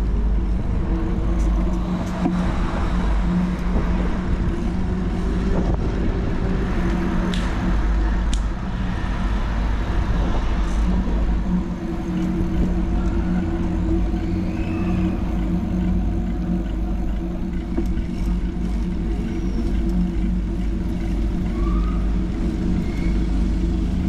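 Steady low engine hum from a nearby motor vehicle, with wind rumbling on the microphone; the hum fades briefly about halfway through and then returns.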